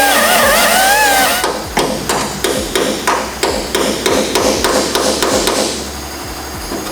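Hammer blows on sheet metal, struck in a quick steady run of about three a second, after a short wavering whine at the start.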